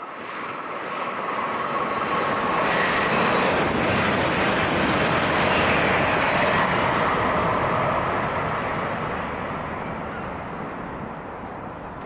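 A train passing along the track: its rumble builds over a few seconds, peaks around the middle and then slowly fades away.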